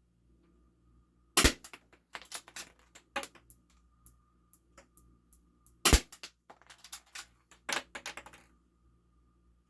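Spring-powered airsoft pistol, a full-metal 1911 replica, fired twice, with a sharp snap about 1.5 s in and another about 6 s in. Each shot is followed by a run of clicks and rattles as the stiff slide is worked to cock the spring for the next shot.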